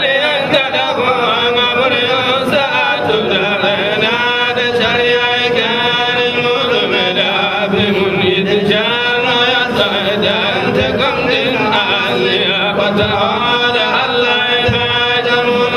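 Men chanting an Islamic devotional chant of the Hamallist Sufi order, two male voices on microphones carrying a continuous melodic line without pause.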